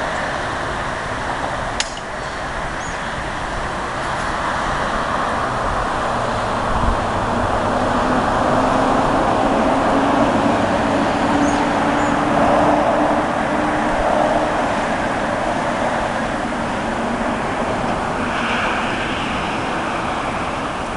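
Steady road traffic noise, swelling as a vehicle passes about halfway through and easing off after.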